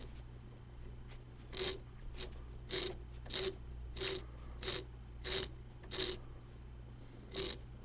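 Short rasping strokes, about three every two seconds, as the 7x mini lathe's spindle and 4-jaw adapter plate are turned in steps against a dial test indicator, over a low steady hum.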